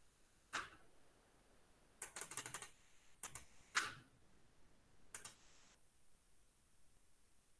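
Scattered clicks of a computer keyboard and mouse: a single click, then a quick run of about five clicks about two seconds in, then a few more single clicks.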